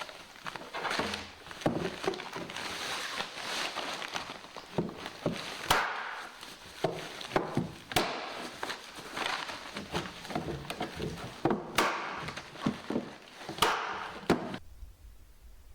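Handling noises from work on wooden planters: irregular sharp knocks and clicks against wood, with rustling in between, stopping abruptly near the end.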